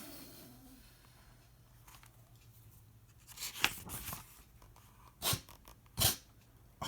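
Quiet small-room tone, then about five short paper-like rustles and knocks spread over the last few seconds, as of a book being handled and its pages turned.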